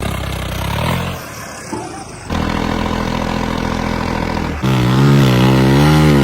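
Vehicle engines running in several short clips spliced together, with abrupt changes at about one, two and four and a half seconds; in the last clip the pitch wavers up and down.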